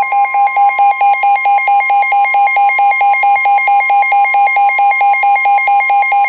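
Emergency Alert System attention signal: a loud, shrill two-tone alert, one tone pulsing rapidly under a steady higher tone. It announces a Flash Flood Warning broadcast.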